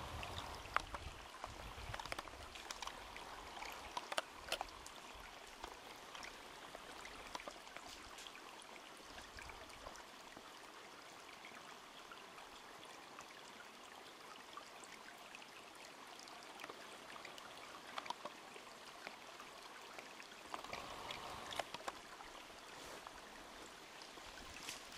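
Faint, steady rushing background noise, with a few sharp clicks or snaps scattered through it, loudest about a second in, around four seconds in and near the end.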